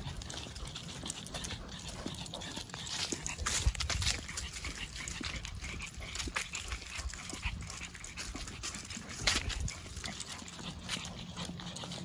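A Pekingese panting heavily as it hurries along on its leash, over steady crunching footsteps on a gravel path strewn with dry leaves; a couple of louder crunches come about four and nine seconds in.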